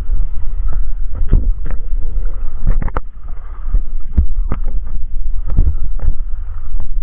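Underwater recording: a steady low rumble of water moving around the diver's camera, broken by about a dozen irregular sharp clicks and knocks.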